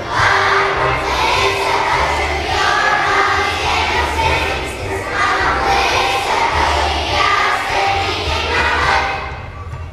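Children's choir of third graders singing together over instrumental accompaniment, growing quieter about nine seconds in.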